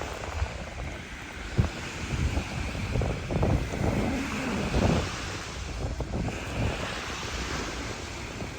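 Wind buffeting the microphone in gusts, strongest mid-way, over the steady wash of ocean surf. A brief knock sounds about a second and a half in.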